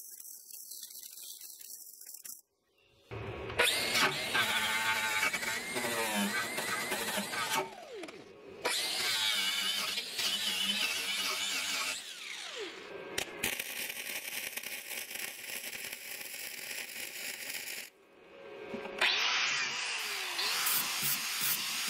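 Flux-core welding arc crackling faintly for a couple of seconds, then angle grinders grinding the steel mower deck in several runs. The motor pitch sags and shifts as the disc bites, winds down once past the middle and spins back up near the end.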